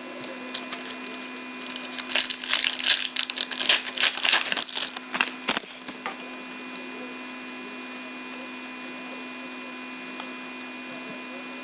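A foil trading-card pack being torn open and crinkled: a run of crackling rustles that stops about six seconds in, then only a steady electrical hum.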